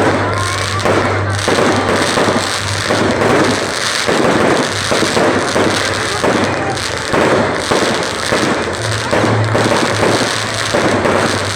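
Fireworks going off in quick succession, one crack and bang running into the next, with music playing underneath.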